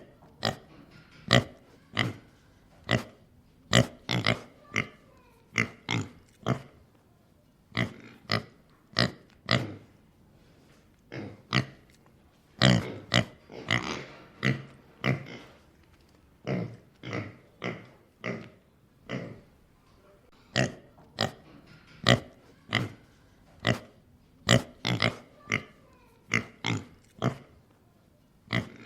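Pig grunting in a long series of short, separate grunts, about one or two a second, some coming in quick clusters.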